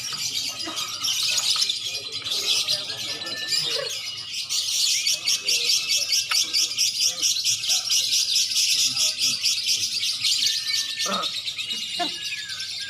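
Contest songbirds, lovebirds and oriental magpie-robins, singing together in a dense, fast chattering trill. A few short level whistled notes come near the end.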